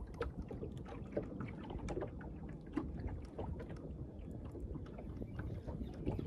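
Small waves lapping and slapping against the hull of a bass boat in irregular small splashes and knocks, over a steady low rumble of wind on the microphone.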